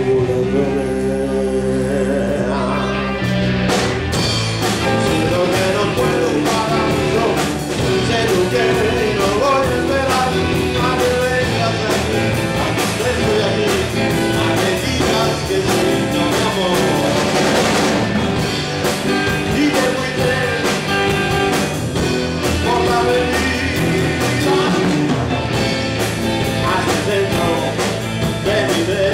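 Live rock band playing: a man singing into a microphone over electric guitar and drums, with the drums growing busier about four seconds in.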